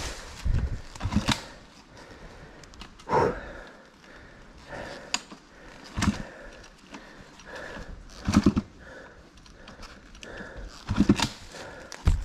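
Heavy breathing and scuffing from a rider hauling a stalled dirt bike on a muddy slope, in irregular bursts a few seconds apart; the engine is not running.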